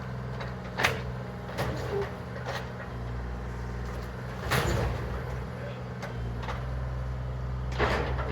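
Bobcat excavator's diesel engine running steadily, with several sharp knocks and crashes of demolition debris, the loudest about four and a half seconds in and near the end.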